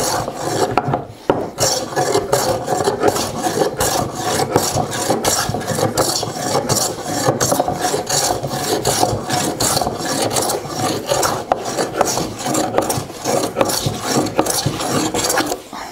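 Steel smoothing plane shaving an oak board, worked in quick, short back-and-forth strokes, about three a second, with a brief pause about a second in. The strokes smooth a face that has already been planed flat.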